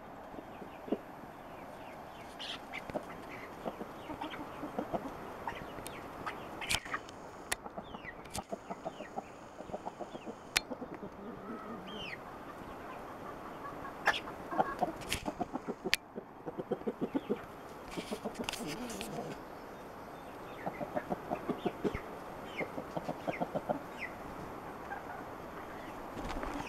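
Chickens clucking in quick runs of short notes as they peck and scramble for food, with sharp clicks scattered throughout.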